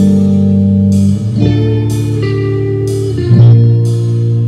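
Guitar music played back from tape on a TEAC A-3300 reel-to-reel recorder.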